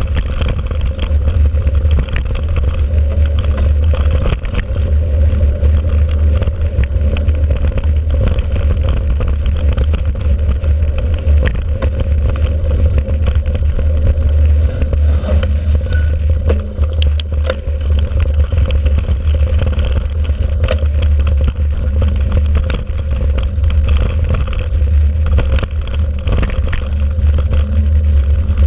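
Mountain bike riding a bumpy dirt track, heard from a handlebar-mounted action camera: a steady, loud rumble of wind and rolling noise on the microphone, with frequent small clicks and rattles from the bike and tyres over the rough ground.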